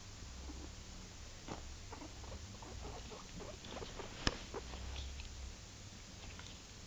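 Small furry pets moving and sniffing right at the microphone on soft bedding: scattered soft clicks and rustles, with one sharp click about four seconds in.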